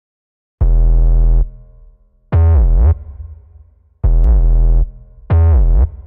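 Electronic background music: after a short silence, four loud, heavy synth bass notes about a second and a half apart, the second and fourth dipping down and back up in pitch.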